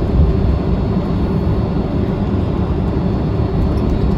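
Jet airliner noise: a steady low rumble.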